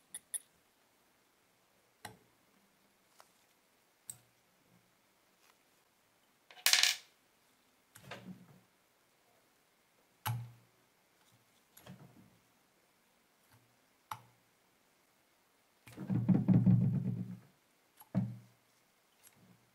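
Small metal tools working on a brass lighter's cage as its rods are pried at and pulled out: scattered light clicks and taps of pick and pliers on brass, with a sharper scrape about seven seconds in and a longer run of knocking near the end.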